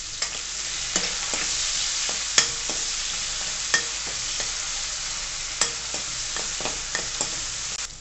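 Diced bottle gourd and okra sizzling in hot oil in a kadai, stirred with a spoon that clinks and scrapes against the pan every second or so.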